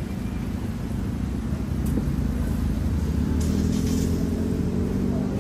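Low, steady rumble of a car engine running close by, a little louder in the second half.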